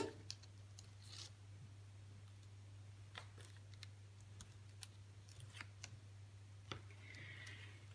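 Faint scattered clicks and soft rubbing of black cardstock being smoothed down along a taped fold with a plastic modelling tool and a hand, over a low steady hum.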